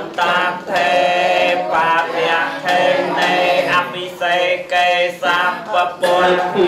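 A man chanting in sung phrases with long held notes, amplified through a microphone and loudspeaker, a Khmer wedding ceremony chant.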